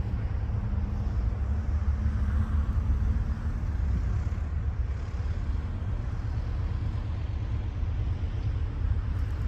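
Distant PKP SM42 diesel locomotive's engine running under load as it approaches up a grade: a steady low rumble, with a faint droning tone in the first few seconds.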